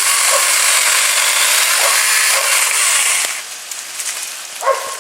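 Saker 20V cordless mini electric chainsaw running as it cuts through a tree limb about 2.5 inches thick: a loud, even buzz with a faint steady whine. The noise drops away about three seconds in as the cut finishes.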